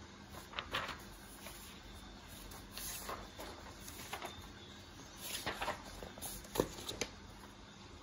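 Sheets of printed paper rustling and sliding under a hand in several short bursts, the loudest about six and a half seconds in, over a faint steady background hiss.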